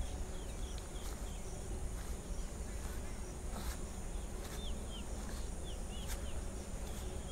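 Quiet outdoor field ambience: a steady high insect drone, with short falling chirps scattered throughout.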